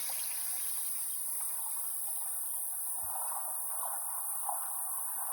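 Water running steadily, an even splashing hiss with no breaks.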